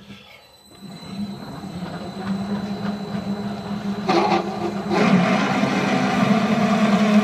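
Metal lathe starting up, spinning its chuck up to a steady hum, then a twist drill in the tailstock cutting into a 1018 steel bar from about four seconds in, the running noise growing louder as the drill bites.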